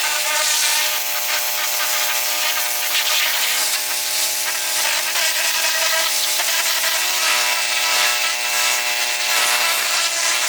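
A power tool running steadily at a constant pitch, with a continuous hiss of it working against material.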